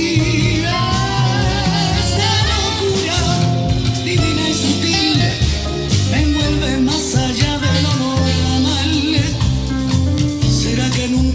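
Music: a song playing, with a strong bass line under a wavering melody.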